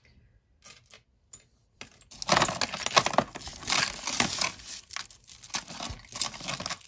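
Tangled metal chain necklaces and costume jewelry jingling and clattering as they are pulled out of a plastic bin of jewelry. A few faint clicks at first, then a continuous jangle from about two seconds in.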